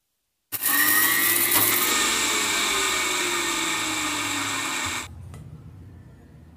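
Electric kitchen mixer grinder running at full speed, its motor whine sinking slightly in pitch as it works. It is switched off about five seconds in, leaving a fainter low hum.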